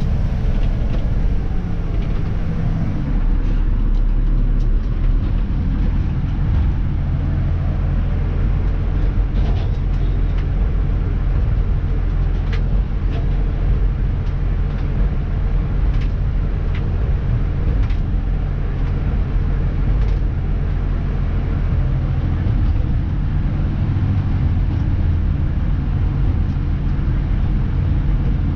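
Diesel engine of a Dennis Elite 2 refuse truck running steadily, heard from inside the cab, with occasional light clicks and rattles.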